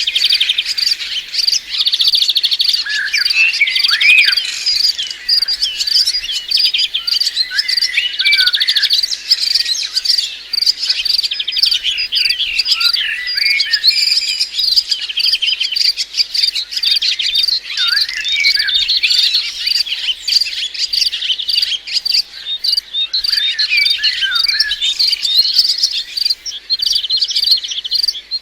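Several white-eyes (pleci) chirping and twittering without pause, a dense chorus of high, quick trills and short rising and falling calls.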